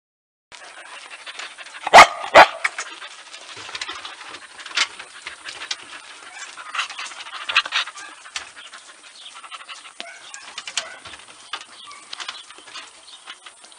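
Several dogs panting close to the microphone, with many small ticks and bumps. Two loud knocks come in quick succession about two seconds in.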